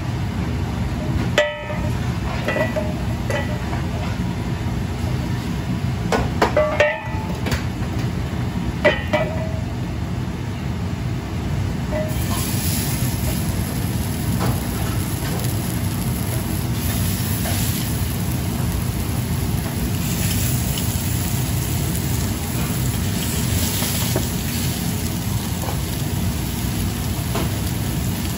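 Raw hamburg steak patties sizzling as they are laid into hot oil in a carbon-steel frying pan, the hiss swelling several times from about twelve seconds in as each patty goes down. Under it runs a steady low rumble from the commercial kitchen's gas range, with a few metal clinks of pans in the first several seconds.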